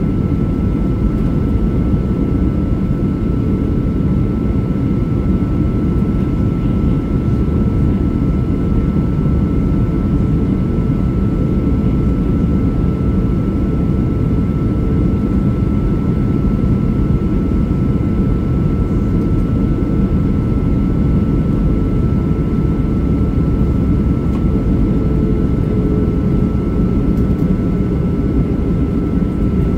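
Boeing 737 in flight heard from inside the passenger cabin: a steady, loud rumble of jet engines and airflow. A thin constant tone rides above it.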